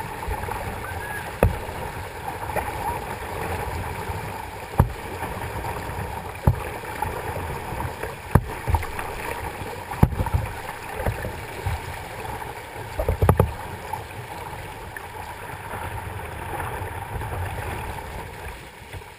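River water rushing and splashing around a plastic kayak's bow in a riffle, with sharp slaps and knocks every few seconds and a cluster of them about two-thirds of the way through.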